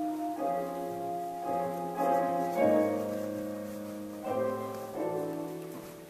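Slow piano music: a series of chords struck roughly once a second, each left to ring, growing softer near the end.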